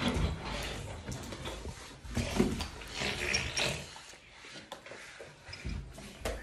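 Close-miked eating and drinking: chewing with small mouth clicks, then sipping from a glass in the second half.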